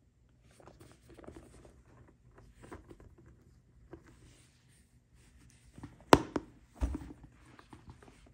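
Gloved hands handling a coated-canvas handbag with leather trim and brass hardware: soft, scattered rubbing and rustling, a sharp click about six seconds in and a dull thump just under a second later.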